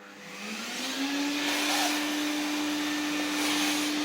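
Vacuum cleaner switched on: its motor spins up, the hum rising in pitch and loudness over about the first second, then runs steadily with a high hiss of airflow.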